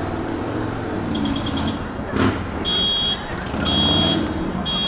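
Electronic alarm beeping from somewhere off the field: a quick run of short chirps, then even beeps about once a second, each about half a second long, over a steady low rumble. A single sharp thud about two seconds in.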